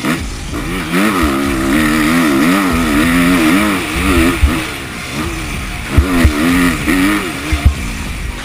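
Kawasaki KX250F's single-cylinder four-stroke engine revving up and down repeatedly as the motocross bike is ridden hard on a dirt track, with a few short low thumps between about four and eight seconds in.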